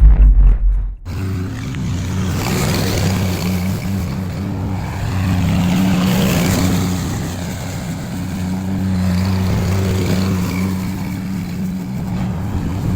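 Gasoline lawn mower engine running steadily, a little louder around the middle, with a heavy deep rumble in the first second.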